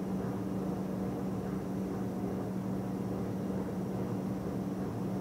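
Large wire (cable) ferry's drive machinery running with a steady hum: one strong low tone over an even rumble.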